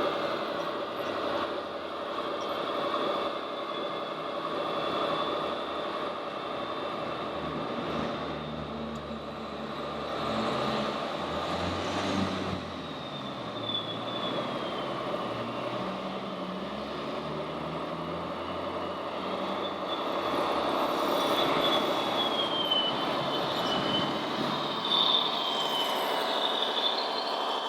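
Radio-controlled model construction machines working: electric motors and gearboxes run with a steady hum, over a high whine that wavers and glides up and down, loudest in the second half.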